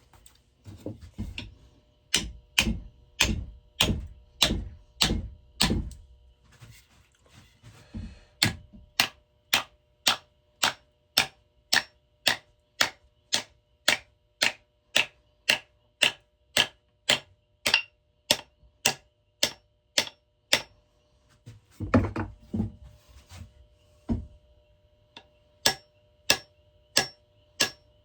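Hammer blows driving a shaped wooden wedge into the eye of an axe head to fix it on its handle. A few heavier, duller blows come first, then a long run of sharp, even strikes about two a second. After a brief break with a couple of duller thuds, the strikes resume.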